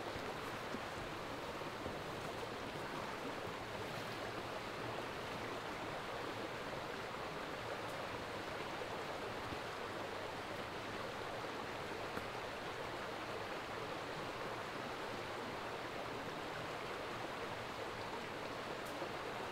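A woodland stream running steadily, an even rushing of water with a few faint ticks.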